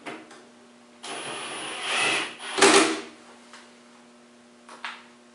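Screw gun briefly driving a fine-thread screw into the plastic case of a garage door opener for about a second and a half, followed by a loud knock. A faint steady hum runs underneath.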